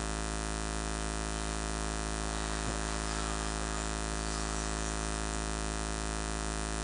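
Steady electrical mains hum from a live PA sound system, a low buzz with many fixed tones stacked above it, holding at one level throughout.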